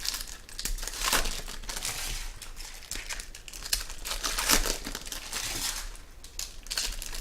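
Plastic wrapping of trading-card packs crinkling in irregular bursts as it is handled and torn open.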